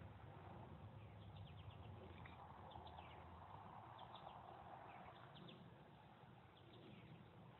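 Faint, soft blowing of breath into a tinder bundle to coax a coal into flame, a gentle hiss that swells about two and a half seconds in and fades by about six seconds. Small clusters of short, faint high chirps come and go throughout.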